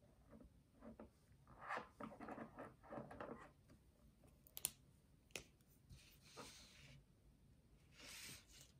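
Faint handling of felt-tip markers: a rustling clatter as one is picked out of a row of markers, then two sharp clicks of a marker cap being pulled off, followed by short scratchy rustles of the paper and marker tip moving on the table.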